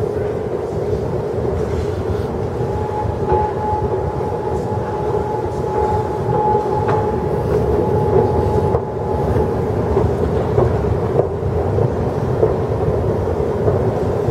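Steady mechanical rumble of a long escalator running, with a thin steady whine for several seconds in the middle.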